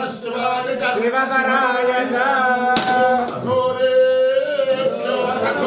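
A man singing a devotional chant in long, held notes, with a sharp click about three seconds in.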